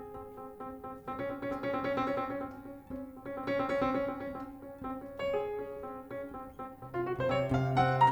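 Jazz piano playing with quick runs of notes; about seven seconds in, a low note enters and is held under the chords.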